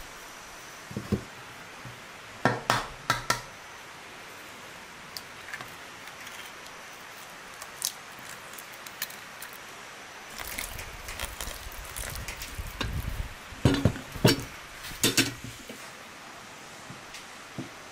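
Handling sounds of dough-making at a metal basin: scattered sharp knocks and clinks. Three quick knocks come about two and a half seconds in, then a busier stretch of rustling and handling, and several loud knocks come about fourteen to fifteen seconds in.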